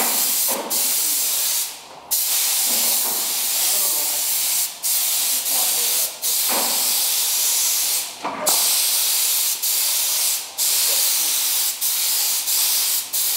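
Compressed-air gravity-feed spray gun hissing as paint is sprayed onto a vehicle body in long passes. The hiss breaks off for a moment every second or two as the trigger is let off between passes.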